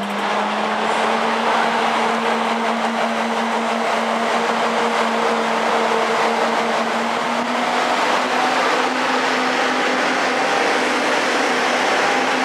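TGV Atlantique high-speed trainset pulling slowly out of a terminus platform: a steady low whine from the traction equipment, rising slightly in pitch as it gathers speed, over the rumble and hiss of the moving train.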